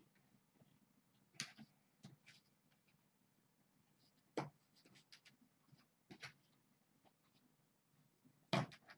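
Faint, scattered scratchy rustles and clicks of hands working plastic zip ties and posterboard on a fence: about five short sounds spread through a near-silent room, the strongest near the end.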